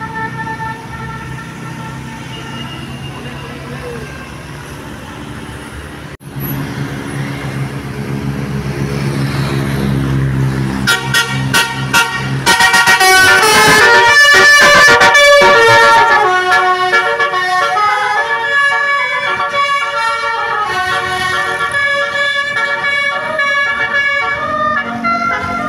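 Bus multi-tone 'telolet' horn (Basuri type) playing a tune over a running bus engine. After a brief break about six seconds in, the horn comes in loud from about eleven seconds, sounding quick, repeating runs of notes.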